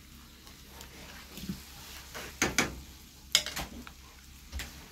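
Wooden spatula stirring browned ground meat in a skillet over a faint sizzle, with two pairs of sharp knocks of the spatula against the pan about halfway through and a second later.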